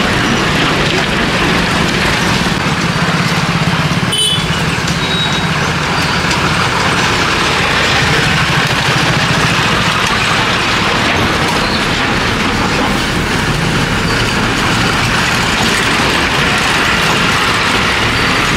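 APSRTC Pallevelugu bus's diesel engine running with a steady low hum and road noise as the bus drives close by.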